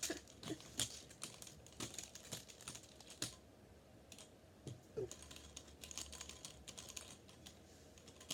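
Irregular light clicks and taps of small plastic toys and parts being handled and set down on a surface, busier at the start and near the end and sparser in the middle.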